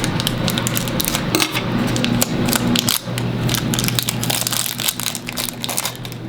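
Plastic toy packaging crinkling and crackling as it is handled and opened by hand, a dense run of quick, irregular crackles over a steady low hum.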